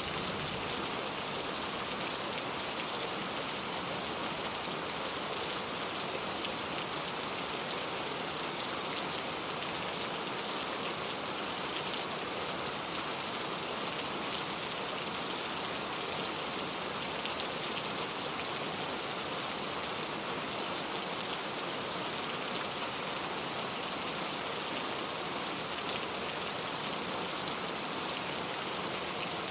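Steady rain falling, an even hiss with many fine drop patters, at a constant level.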